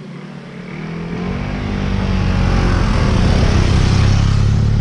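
Motorcycle engine approaching and passing close by, growing steadily louder to its peak about four seconds in.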